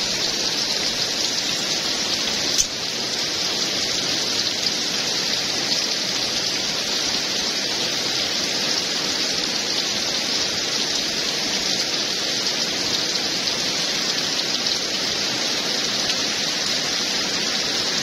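Heavy rain pouring down in a rainstorm, a steady, even hiss. There is one sharp tick about two and a half seconds in.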